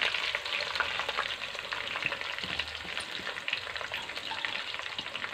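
Sliced bitter gourd (karela) just added to hot oil in an aluminium karahi, frying with a dense crackling sizzle that slowly eases.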